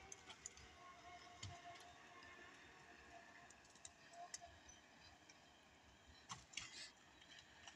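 Near silence with a John Deere 1070G wheeled harvester running faintly in the distance as a low steady hum with a thin held tone. Scattered faint clicks and cracks, with a short cluster of them about six and a half seconds in.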